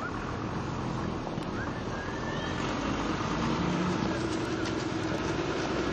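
A motor vehicle engine running, a steady hum that gets a little louder about halfway through.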